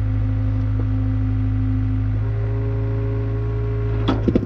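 Mini excavator's engine running steadily with a whine from the hydraulics as the boom and bucket are worked; the whine changes pitch about two seconds in. Near the end a few sharp knocks as the steel bucket clunks against the fieldstones.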